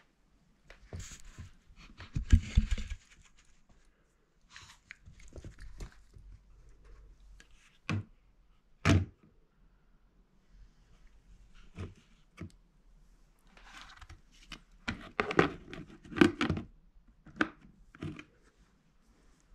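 Small plastic bucket with a snap-on lid being knocked, pushed about and handled while a Yorkshire terrier works at it to get her toy out: irregular hollow knocks and thunks with scraping and rustling. The loudest knocks come a couple of seconds in, around the middle, and in a cluster near the end.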